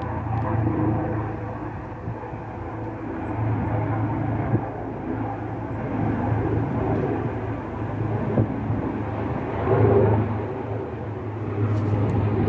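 Helicopter flying low overhead: a steady low drone that swells and fades in loudness.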